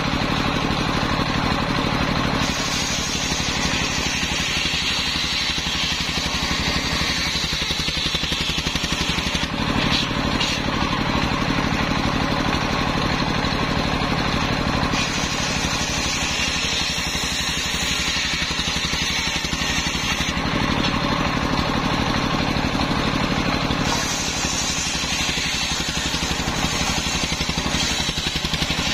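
Large belt-driven circular saw blade, powered by a stationary engine running steadily, ripping waru (sea hibiscus) logs lengthwise. The sound shifts every several seconds as each cut starts and ends.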